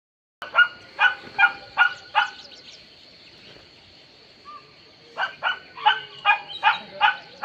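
A dog barking in two bouts of quick, evenly spaced barks, about five in the first two seconds and six more in the last two and a half seconds. Underneath is a steady high-pitched whine.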